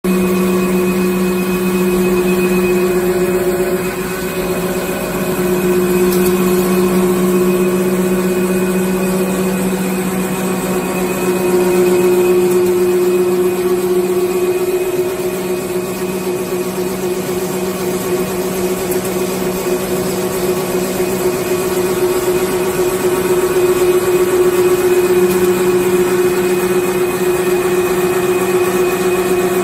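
Automatic napkin paper making machine running steadily, a continuous mechanical hum with a low drone and a higher steady tone above it.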